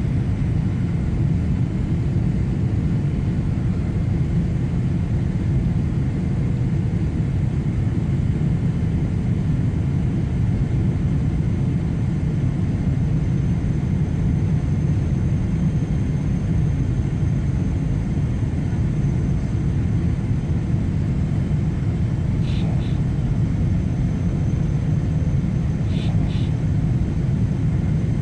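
Steady low rumble inside the passenger cabin of a Boeing 777-300 descending on approach: jet engine noise and rushing air, heard through the cabin wall.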